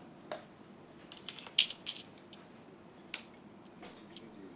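Scattered sharp clicks and paper rustles from pens and document folders being handled at a signing table, with a loud flurry of clicks about a second and a half in.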